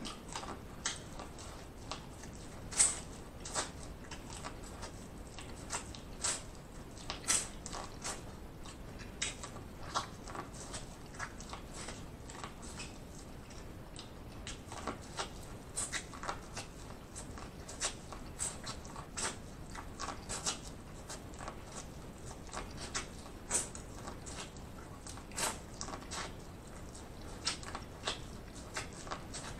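Close-miked eating: biting kernels off a cob of boiled corn and chewing them, heard as irregular short crunching clicks.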